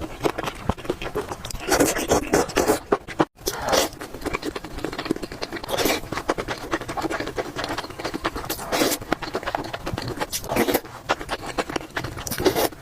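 Close-up eating sounds of a person chewing food, a rapid run of small wet clicks with louder flare-ups every second or two. A momentary break in the sound about three seconds in.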